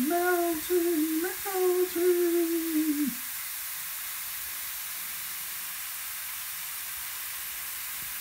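A person humming a few held notes for about three seconds, over the steady fizzing hiss of a baking-soda fizzer shell dissolving in a pot of water.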